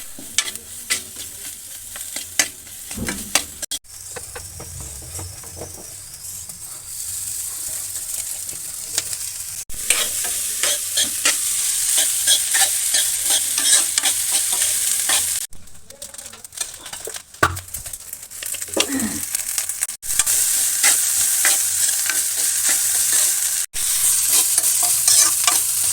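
Food sizzling and frying in a hot pan, with a utensil stirring and clicking against it. It comes in several short takes that stop abruptly and start again, and the sizzle is loudest in the second half.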